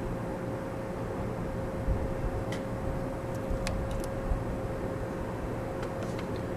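Steady background hum of room noise with a thin, faint steady whine, and a few light clicks scattered through it.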